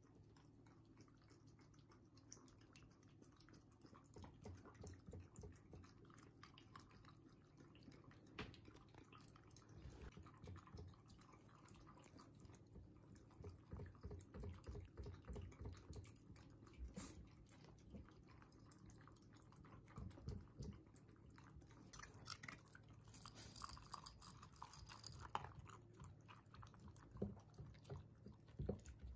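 Shiba Inu dogs eating from ceramic bowls: faint, irregular chewing and smacking of food, with sharper crunching of dry kibble near the end.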